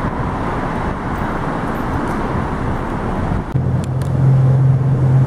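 Car running close by, a loud rushing noise. About three and a half seconds in, a steady low hum starts and keeps going.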